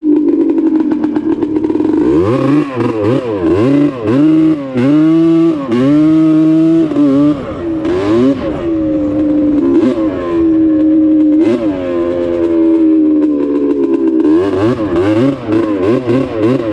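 Snowmobile engine running hard at speed, its pitch dropping and climbing again many times as the throttle is let off and opened. The swings come quickly in the first half and again near the end, with a steadier stretch between, over scattered knocks and rattles.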